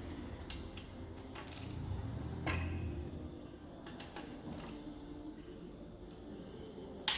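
Scattered metallic clicks and knocks of hand tools on the conrod bolts of a Ford 2.0 Duratec engine as they are turned a further 90 degrees after torquing, with a louder knock about two and a half seconds in and one sharp loud click near the end.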